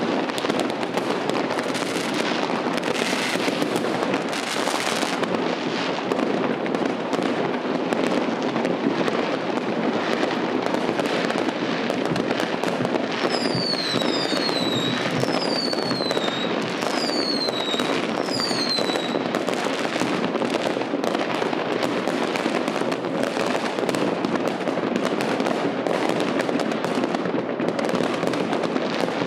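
Many fireworks and firecrackers going off at once in a dense, continuous crackle of bangs and pops. About halfway through, a run of about five short falling whistles cuts through the crackle.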